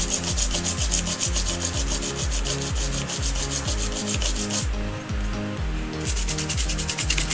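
Background music with a steady beat: a pulsing bass line and rapid hi-hat-like ticks, which drop out for about a second midway.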